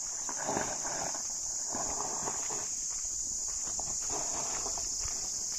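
Crunching footsteps on loose gravel, a few slow steps, over the steady high buzz of insects.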